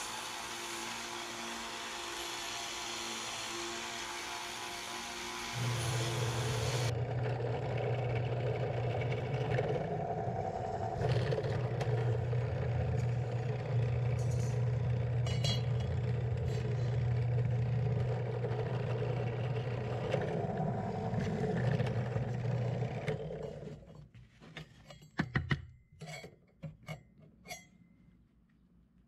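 Bench belt sander running with sheet metal ground against the belt, a steady hissing grind. A few seconds in, a drill press motor takes over with a steady lower hum, then winds down about four fifths of the way through. Small metal clinks and clatter follow near the end.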